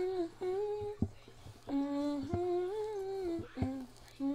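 A woman humming a tune with her mouth closed, in held, slowly moving notes broken into short phrases, with a few short sharp clicks between the phrases.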